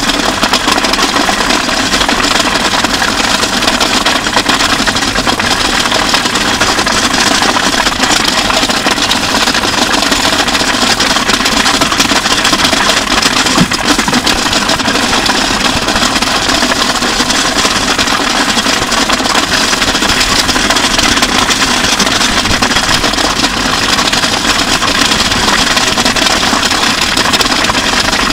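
Red drum kit and electric guitar dragged along wet asphalt: a loud, unbroken grinding scrape, with the guitar's pickups, recorded through line, turning the body scraping the road into a dense electric noise.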